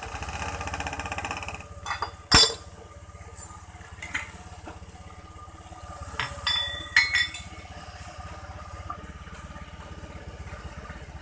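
Honda Vario 125 scooter's fuel-injected single-cylinder engine starting and settling into a steady idle, its first start after the injector and throttle-body cleaning. A single sharp knock comes about two and a half seconds in, and a few metallic clinks come around six to seven seconds in.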